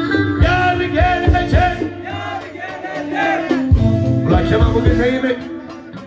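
Live Turkish arabesk band music: a violin melody with wavering, sliding notes over a drum beat.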